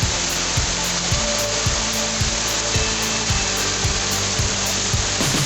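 Background music with a steady beat, a little under two beats a second, over a loud, even rush of noise like falling water.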